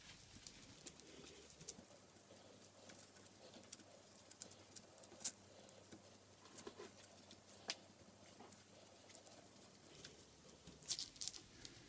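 Faint, scattered soft ticks and crackles of gloved fingers pressing and spreading sushi rice over a sheet of nori, with a few sharper clicks around the middle and a short cluster near the end.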